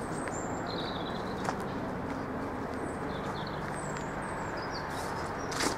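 Quiet canal-side ambience: a few faint bird chirps over a steady low hum and rumble, with a brief noise near the end.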